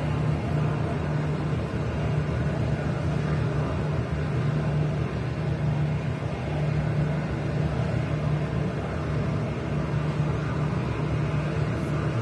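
Steady low engine hum with a constant drone, running evenly throughout.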